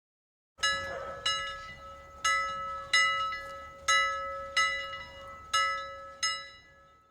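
Bell-like chime music: about nine struck, ringing bell tones in a slow sequence over a steady held note, starting after a half-second of dead silence.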